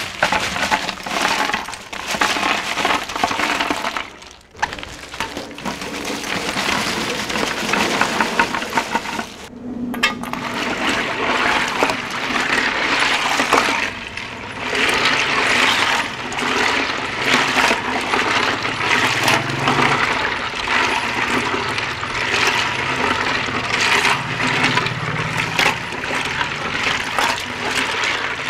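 Ice cubes poured from plastic bags into a large glass tank of orange juice, clattering and clinking against each other and the glass and splashing into the juice. There are two short pauses in the first ten seconds.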